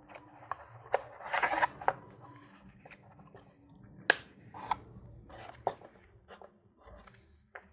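Paper booklet and cardboard box being handled: paper rustling and sliding against cardboard, with scattered light clicks and taps. A burst of rustling comes about a second and a half in, and a sharp tap near four seconds.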